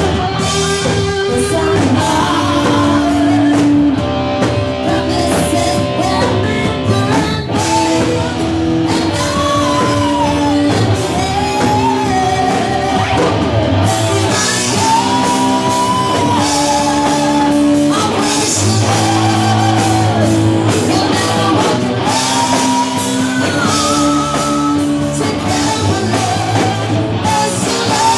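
Live rock band playing loudly: a woman singing with a wavering, held vocal line over electric guitar.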